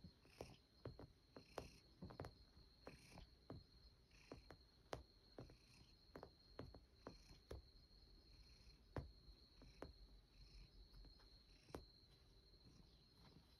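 Faint, irregular clicks and soft scratchy rustles of a cat's paws and claws kneading a sherpa-fleece pet bed, over a faint steady high-pitched tone.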